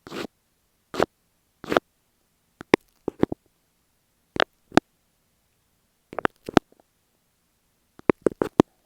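Close-up ASMR sounds of masking tape stuck over an earphone microphone being tapped and scratched. A few short scratchy strokes come first, then sharp taps in small clusters of two to four, a second or two apart.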